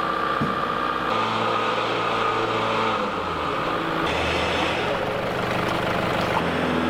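Vehicle engine running steadily at idle, its tone changing abruptly about a second in and again about four seconds in.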